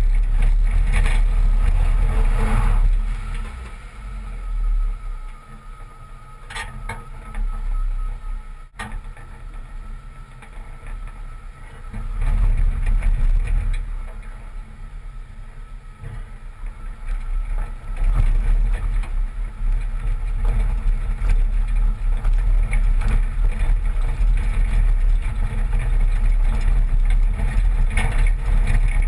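1986 Toyota pickup with a 22R four-cylinder engine driving over a rocky dirt trail, heard from beside the front wheel: a steady low rumble of engine and tyres on gravel. It eases off for several seconds and comes back, with a single sharp knock about nine seconds in.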